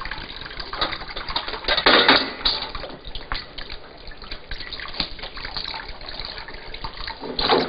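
Water poured from a kettle splashing through a plucked chicken into a bowl, then trickling and dripping off the bird, with a couple of louder bursts about two seconds in and near the end.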